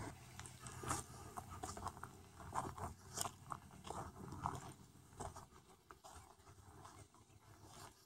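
Footsteps crunching on gravel and dry brush, with irregular crunches and scrapes about a second apart.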